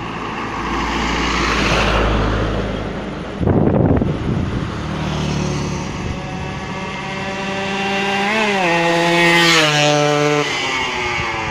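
Yamaha RX-King's stock two-stroke single-cylinder engine with an under-belly exhaust, revving hard under acceleration. The pitch climbs, drops at a gear change about eight seconds in, then climbs again before easing off. A loud rushing burst comes near four seconds in.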